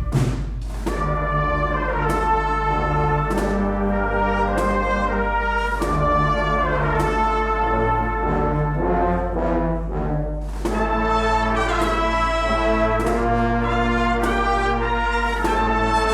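Agrupación musical (brass and percussion band) playing a Spanish Holy Week processional march: held brass chords moving from note to note over regular percussion strokes about every second and a quarter.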